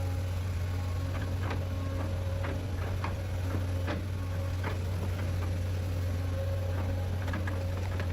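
Engine of a logging machine running steadily with a low hum, with scattered light clicks and knocks throughout.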